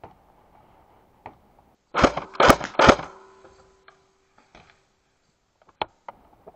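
Airsoft gunfire: a quick cluster of about five sharp cracks about two seconds in, with a few lighter single clicks scattered before and after.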